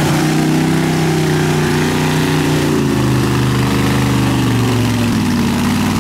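An old Jeep's engine running hard under load as it ploughs through deep mud and water, its pitch dropping a little about halfway through, with mud and water splashing.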